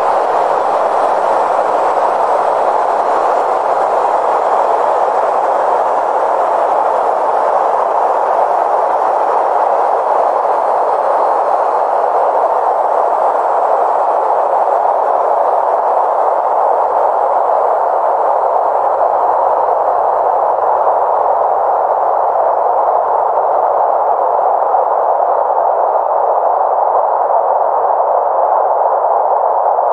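Electronic noise drone: a steady, loud hiss-like rush of filtered noise centred in the middle of the range, unchanging throughout. A little past halfway, faint low bass tones come in underneath.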